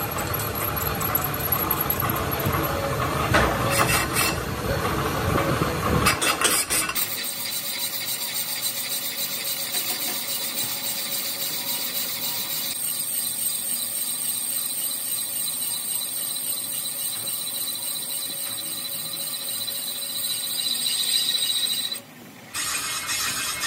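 Tractor brake drum turning on a lathe while the cutting tool machines it: metal-on-metal cutting with a high squeal. It is rough and gritty for the first several seconds, then settles into a steadier cut with a thin high whine, and dips briefly near the end.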